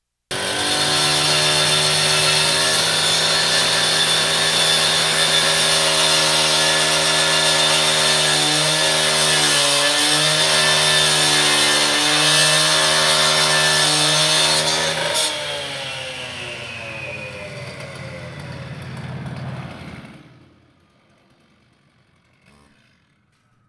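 Gas-powered cut-off saw with an abrasive disc cutting through a chain-link fence, running at full throttle with its pitch dipping now and then as the disc bites. About fifteen seconds in it is throttled back and winds down, stopping about twenty seconds in.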